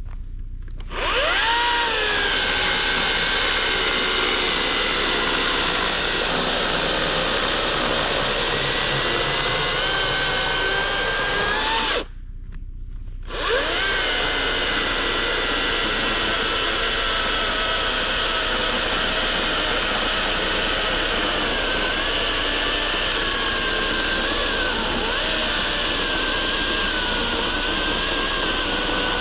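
Greenworks Pro 80V battery-powered electric chainsaw cutting through a log. The motor spins up with a rising whine about a second in and runs steadily under load, stops briefly near the middle, then starts again with another rising whine and keeps cutting.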